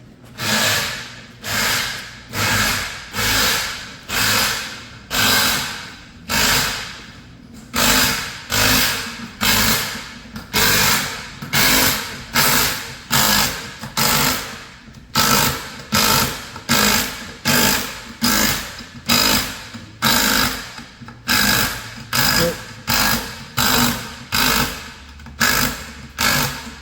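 Hand tool worked back and forth in rhythmic rasping strokes, about one and a half strokes a second at first and quickening to about two a second after the halfway point, with a couple of short pauses.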